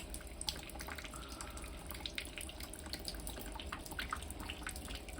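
Rainwater leaking into a garage after a storm, trickling steadily with many scattered drips.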